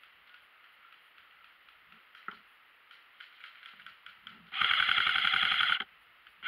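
Airsoft electric rifle firing a full-auto burst of about a second, a rapid even rattle of shots, with a second short burst right at the end.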